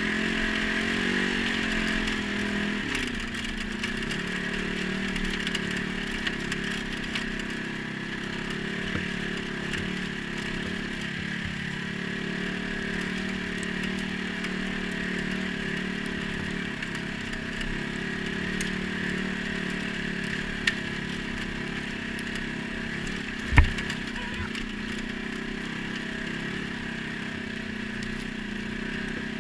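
ATV engine running at a steady speed while riding, its pitch easing down slightly in the first few seconds. About three quarters of the way through there is one sharp knock.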